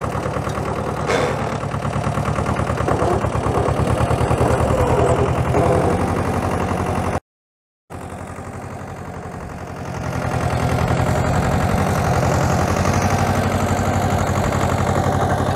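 Compact New Holland TC30F tractor's engine running steadily under load, driving a rotavator through the PTO shaft as it tills sandy soil. The sound drops out for under a second about seven seconds in, then returns and grows louder about ten seconds in.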